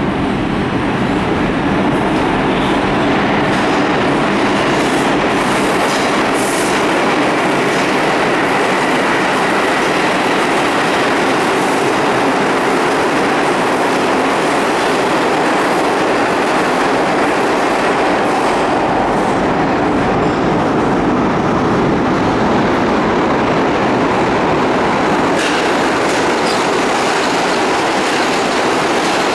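New York City Subway R142A train running along the track, a loud, steady rumble.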